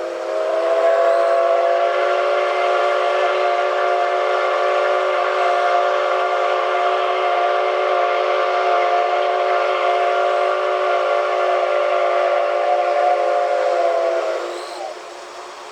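Steam whistle of the JNR C57-class locomotive C57 180 blowing one long departure blast: a steady, loud chord of several tones held for about fifteen seconds, swelling just after it begins and stopping shortly before the end.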